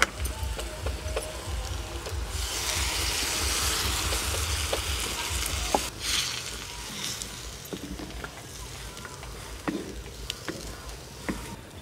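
Snail curry sizzling in a black clay pot as water is added and a wooden spatula stirs it. The sizzling swells about two seconds in and eases after about six seconds, with a few light knocks of the spatula against the pot.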